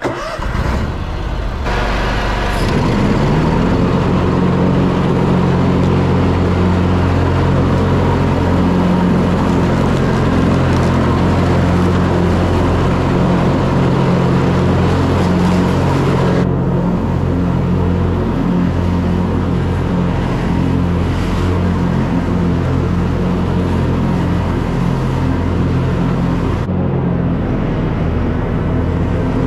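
Lawn mower engine running steadily at working speed, a low drone that builds up over the first couple of seconds.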